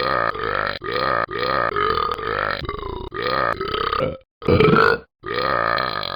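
Repeated burping: about ten belches in quick succession, each under half a second, then a louder belch about four and a half seconds in and a longer drawn-out one near the end.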